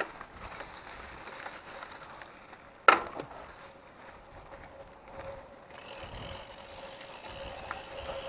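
Mountain bike riding over a rough forest road, with low rattling and road noise. There is one sharp knock about three seconds in, and a faint steady tone from about halfway.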